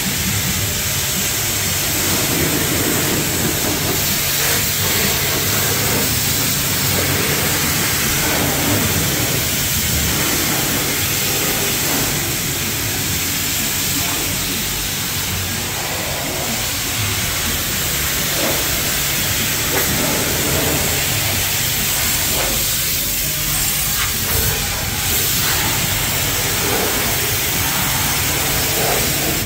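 Mark VII (WashTec) Aquaspray high-pressure wash wand spraying water onto a car's panels, a steady hiss of spray with a steady low hum underneath.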